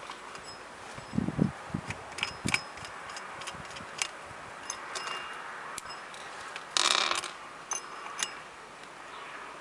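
Yamaha Jog scooter's kick-start ratchet mechanism being worked during a check of its return spring: scattered sharp metallic clicks, a few dull knocks about a second in, and a short harsh rasp about seven seconds in, the loudest moment.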